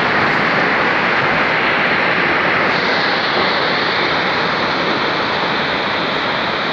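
Rockslide on a mountainside: a loud, steady roar of falling rock and debris, with no separate crashes standing out.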